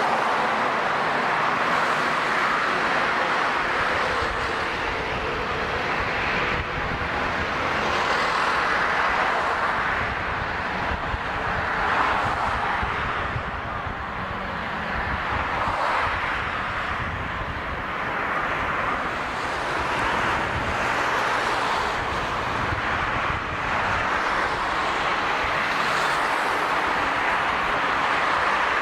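Airport field recording: a steady roar of aircraft engine noise that swells and eases gently, with no sharp events.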